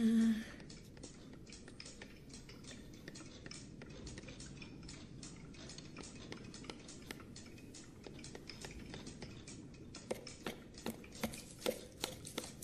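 Faint, irregular small clicks and taps of a knife or chisel carving wood, growing busier near the end. A brief, louder low-pitched sound at the very start.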